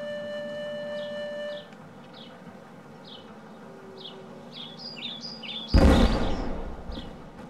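Birds chirping over steady music tones that stop about a second and a half in. Near the end comes a sudden loud explosion, the blast of an unexploded bomb going off in the field, with a deep rumble that dies away over about a second and a half while the birds keep chirping.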